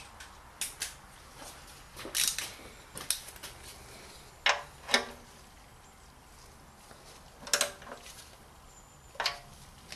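A wrench tightening the sump drain plug on the oil pan: a handful of sharp metallic clicks and clinks at irregular intervals, some ringing briefly.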